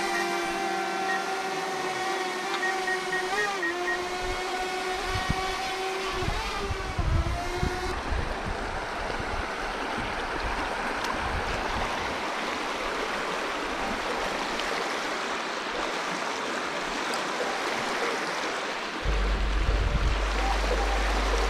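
Quadcopter drone buzzing overhead for about the first eight seconds, its pitch wavering as it moves. After that the steady rush of shallow river water over a riffle is heard. Background music with a heavy bass comes in near the end.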